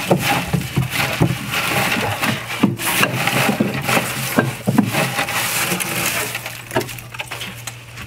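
Dry wheat straw rustling and crackling as it is grabbed by hand and pulled out of a wooden flail thresher box, with scrapes and small knocks against the wooden sides.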